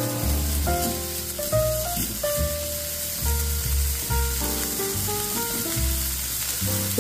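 Diced bacon sizzling as it fries in a nonstick pan, stirred with a silicone spoon, over background music with held notes and a bass line.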